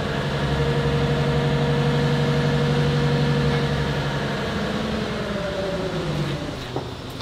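Boat travel lift's engine running steadily at raised speed, then dropping in pitch and winding down about six seconds in. A single click follows shortly before the end.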